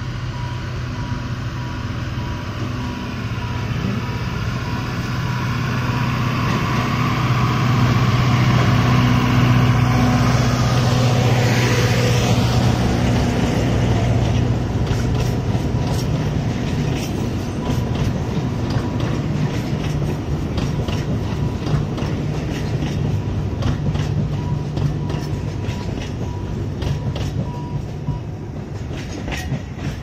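Alishan Forest Railway diesel locomotive hauling a Zhongxing passenger train slowly past. The engine's low hum is loudest as the locomotive goes by, about ten seconds in. After that the carriages' wheels click over the rail joints, the clicks coming faster toward the end.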